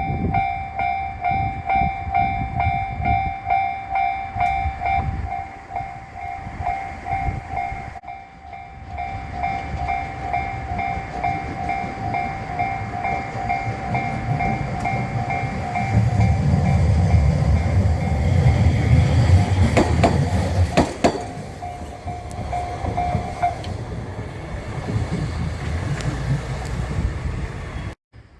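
A Japanese railway level crossing's electronic warning bell ringing in a steady repeated tone, which stops about 23 seconds in. Partway through, a train passes over the crossing with a heavy low rumble and a few wheel clacks.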